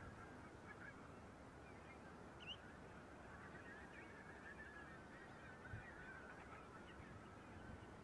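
A distant flock of birds calling, a faint, continuous chatter of many overlapping calls.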